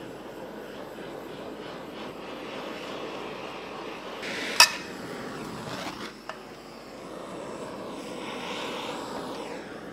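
Handheld butane kitchen blowtorch flame hissing steadily against the side of a metal cake tin, with one sharp click about halfway through.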